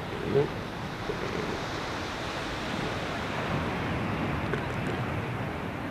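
Steady surf and wind noise. About half a second in comes one low pulse of an elephant seal call, the last of a short series.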